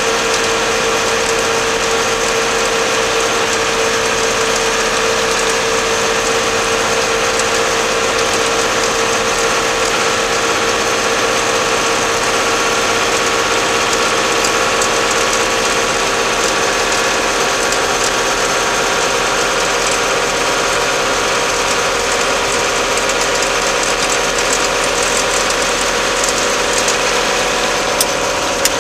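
Case 885 XL tractor's diesel engine running steadily while driving along the road.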